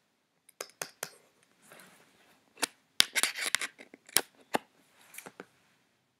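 Scattered sharp clicks and taps, about ten in all, with a brief scratchy rustle about three seconds in.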